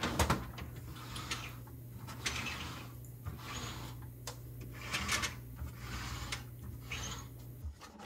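Plastic refrigerator turntable trays spun back and forth by hand: a run of rolling, rubbing whirs, each lasting about half a second to a second, with a few clicks, the sharpest just at the start. A steady low hum sits underneath.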